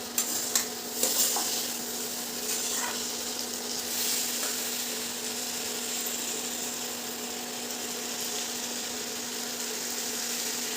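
Ghee sizzling steadily in a kadhai as chopped dates, cashews, raisins and jaggery fry in it. A stirring utensil knocks against the pan a few times in the first second or so.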